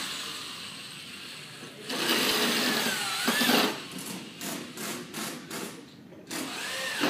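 Electric drill running in bursts: one longer run whose motor pitch dips and rises again, then a string of quick short trigger blips, and another short run near the end.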